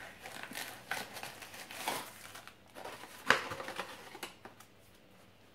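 Packaging being handled and unwrapped: irregular crinkling with a few clicks and taps, one sharp click about three seconds in the loudest, then it goes quiet near the end.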